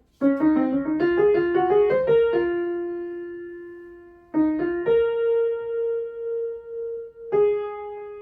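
Piano playing a single-note melody line: a quick run of notes in the first two seconds or so, then a few long held notes, each struck and left to ring out.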